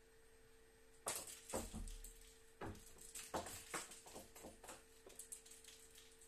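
Dry bark substrate rustling and crackling in a run of scattered clicks as a boa constrictor shifts its head and coils around a white rat, starting about a second in and dying away near the end. Underneath is a faint steady hum.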